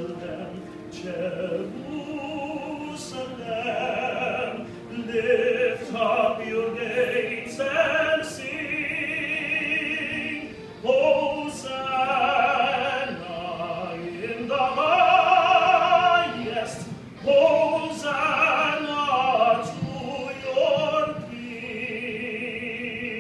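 A solo voice singing a slow song, holding long notes with wide vibrato over a quieter musical accompaniment.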